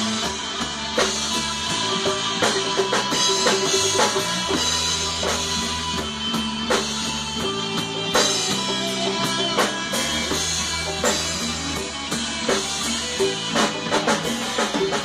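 Rock band playing an instrumental passage: distorted electric guitar, electric bass and a drum kit with steady kick, snare and cymbal hits.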